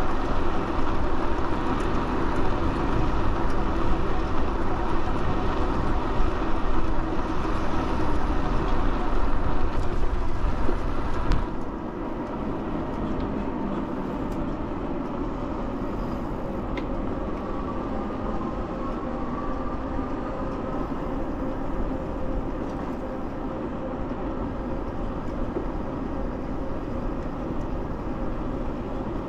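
Steady riding noise from an e-bike rolling on pavement: wind buffeting the handlebar-mounted camera's microphone, with tyre hum and a faint steady whine. The noise drops off suddenly about a third of the way in and stays lower.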